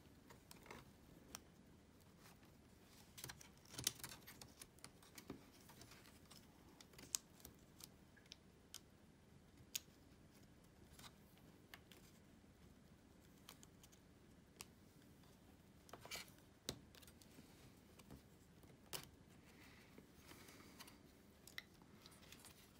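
Faint, irregular small clicks and scratches of fingers fitting thin ribbon cables into their plastic connectors and latches inside an opened laptop.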